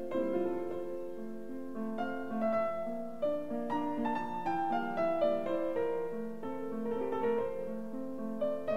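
Piano music playing a steady run of notes, with no engine sound.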